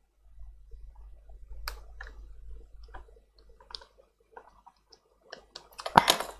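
Scattered light clicks and small scrapes of plastic parts and a tool being worked inside an opened tablet, with a louder rattle of clicks near the end.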